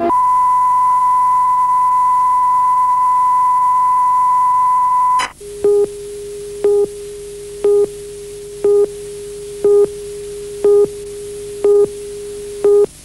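Broadcast videotape line-up test tone: one high, steady pure tone for about five seconds that cuts off abruptly. It is followed by a lower steady tone with a louder beep once a second, eight beeps in all, like a tape leader countdown.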